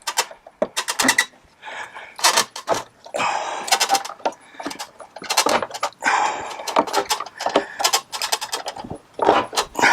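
Plastic step pad being pried and popped out of a Mopar tubular step bar: a string of sharp clicks and snaps as its clips let go, with rasping scrapes in between.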